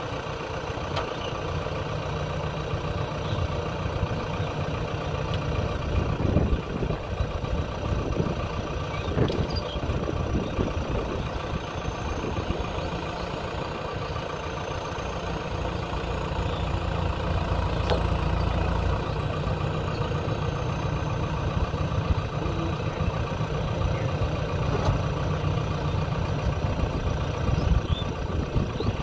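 JCB 3DX backhoe loader's diesel engine running steadily while its front loader lowers a concrete culvert pipe, picking up a little past the middle. A few knocks about a quarter of the way in.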